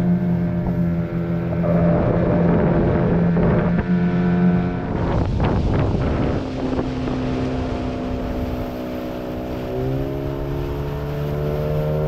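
Small outboard motor driving an inflatable dinghy, running steadily with wind and water noise. About five seconds in the engine note drops as it slows, and near ten seconds it picks up again.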